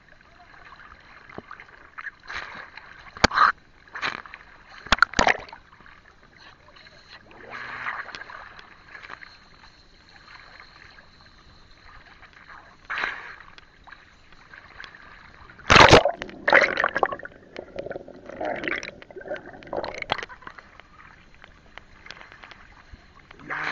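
Seawater sloshing and gurgling around a camera held at the waterline beside a boat's hull, with sudden splashes as it dips in and out: a cluster about three to five seconds in and the loudest about sixteen seconds in. A faint steady high whine runs underneath.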